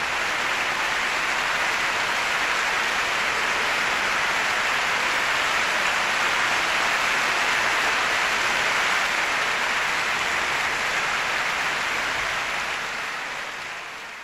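A steady, even rushing noise with no tune or pitch, fading out near the end.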